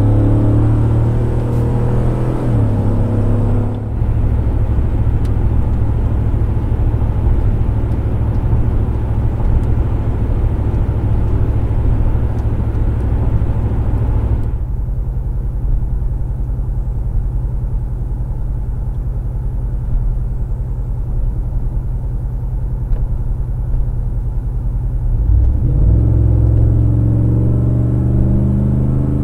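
A GMC Sierra 1500's 6.2-litre V8 through a stainless MPI Bullnoze cat-back exhaust, heard from inside the cab while driving. The engine pulls with rising pitch at first, then settles into a steady low drone. From about halfway it goes softer as the truck slows, and it rises again as the truck accelerates about four seconds before the end.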